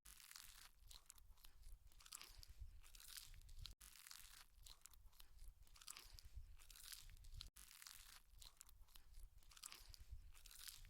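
Close-up chewing and crunching of spicy chicken feet in curry: a steady run of wet, crackly bites. There are two brief dropouts in the sound, about a third and two thirds of the way through.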